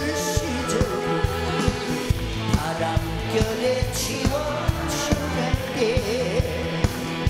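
Live trot ballad played by a band: a male singer with a wavering vibrato over a steady drum beat, electric guitar and keyboards.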